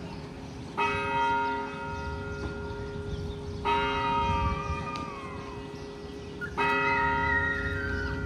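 A large bell tolling slowly, struck three times about three seconds apart, each stroke ringing on and fading.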